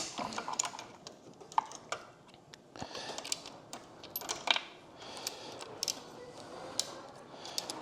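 Irregular light metallic clicks and clinks of hand tools and fittings as the fuel line on a supercharged big-block engine is disconnected.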